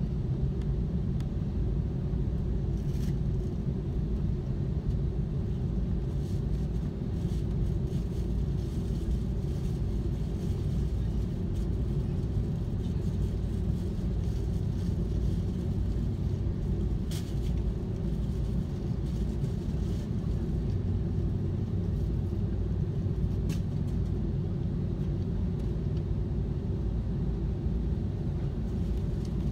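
Steady low rumble inside the cabin of an Airbus A330-300 taxiing at low engine power, the engines humming and the wheels rolling over the taxiway, with a few faint clicks.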